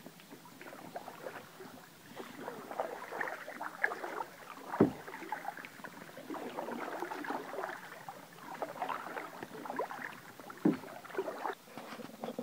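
Canoe being paddled on a small river: irregular splashing and trickling of paddle strokes in the water. Two sharp knocks, the louder about five seconds in and another near eleven seconds.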